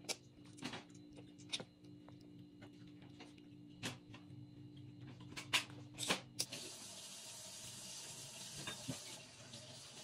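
A baby chewing and smacking her lips on soft fruit, with scattered short wet clicks and smacks. A steady hiss comes in about six seconds in.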